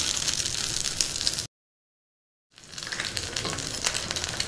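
Raw egg frying in hot oil on a clay griddle, sizzling with a dense crackle of fine pops. The sound cuts out completely for about a second in the middle, then comes back.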